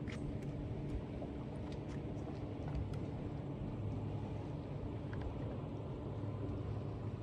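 Steady low rumble of wind and water around a small fishing boat, with a faint steady hum underneath and a few light ticks.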